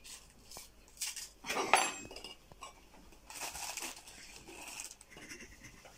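Plastic knife scraping chocolate spread from a jar and spreading it across crisp rusks on a plate, with light knocks and clinks against jar and plate. A sharp clink just under two seconds in is the loudest sound, followed by a stretch of scraping.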